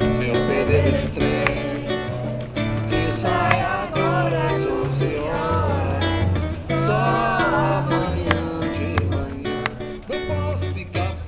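Acoustic guitar strummed and picked, with a man singing over parts of it.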